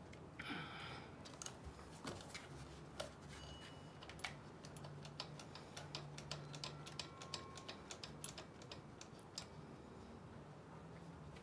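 Faint, quick light clicks, several a second, from a hand tool working the engine-mount bolts of a 63cc/71cc two-stroke scooter engine; the clicking is densest in the middle stretch.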